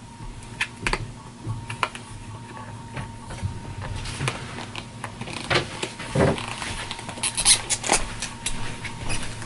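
Hands handling a GoPro Hero 7 Black and its plastic packaging: scattered plastic clicks and scrapes as the camera is worked at to free it. A quick run of sharp clicks comes near the end.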